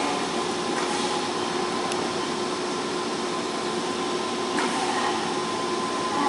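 Senboku 5000 series electric train creeping to a stop at a station platform and standing there, giving off a steady whirring hum with a faint high tone held over it. There are a couple of light clicks, about a second in and near the end.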